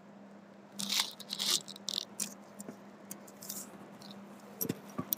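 Quiet rustling and scraping of hands handling a bead string and clothing, with a few light clicks near the end, over a steady low hum.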